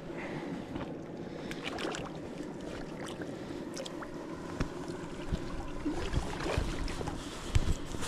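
River water flowing steadily, with scattered small clicks and knocks from handling gear, and a few louder knocks near the end.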